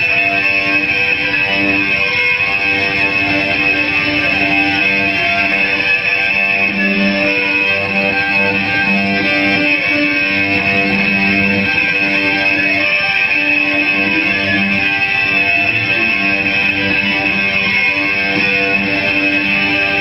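Amplified cello bowed in fast, hard strokes: a loud, dense, unbroken wash of scraping tones with a steady high ring over it and low notes that come and go underneath.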